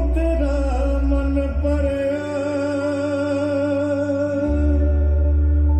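Punjabi song playing through a Logitech Z623 2.1 speaker system with subwoofer: one long held note with vibrato over a deep bass tone. The bass drops out about two seconds in and returns about four and a half seconds in.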